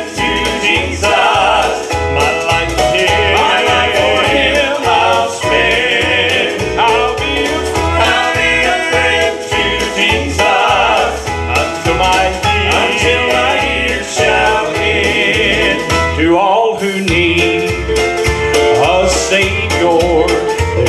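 Male gospel trio singing in harmony over instrumental accompaniment with a steady bass beat. The music breaks off briefly about sixteen seconds in, then a voice glides up and the song carries on.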